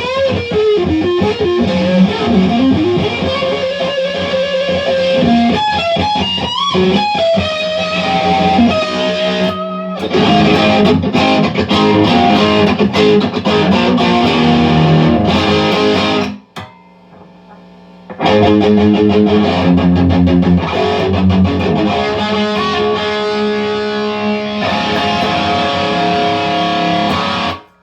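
Electric guitar played through an amp: single-note lines with bends for the first several seconds, then busier riffing. It stops suddenly about two-thirds of the way through, resumes after a second or two, and cuts off just before the end.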